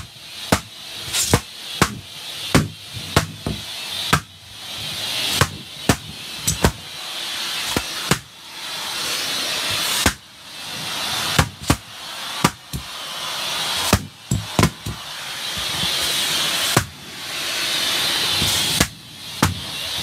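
White latex balloons bursting one after another as a shop vac nozzle sucks them in: dozens of sharp pops at irregular intervals over the rushing hiss of the vacuum's airflow, which builds for a second or two and cuts off abruptly at a pop.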